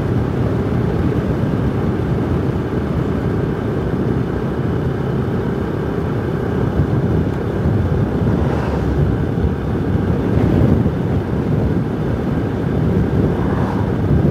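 Steady wind rush on the microphone mixed with a Yamaha YBR motorcycle's single-cylinder engine running at cruising speed on the open road.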